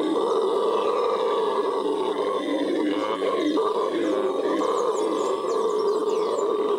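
Venezuelan red howler monkey howling: one loud, deep, continuous roar that carries on without a break.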